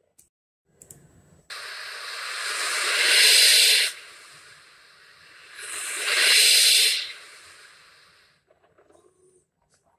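A hissing noise starts abruptly, swells to a loud peak and drops sharply, then does the same again, and fades out.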